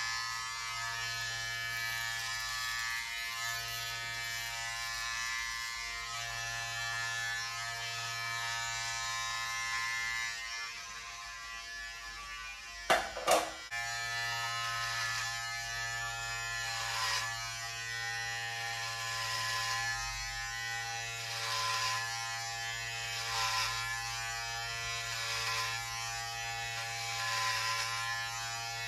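Electric hair clippers running with a steady buzz, a low hum with a stack of higher overtones, as they work through long hair. About halfway through the buzz drops, then two sharp knocks come close together.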